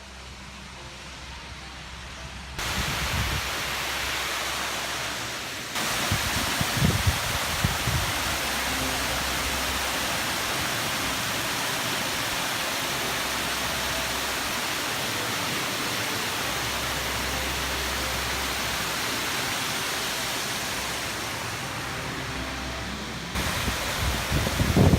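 Rushing water of the Rio Bianco waterfall, a loud, even roar of falling water. It starts softer and steps up abruptly about two and a half seconds in and again near six seconds, then holds steady.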